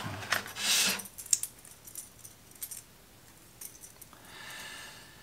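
Clear plastic blister package rustling and crackling as it is opened, loudest about a second in, followed by scattered light clicks and taps as the lure is handled out of it.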